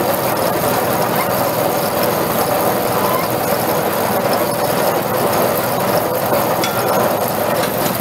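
Small engine of a Christmas tree netting baler running steadily while a tree is drawn through the baler's drum and netted.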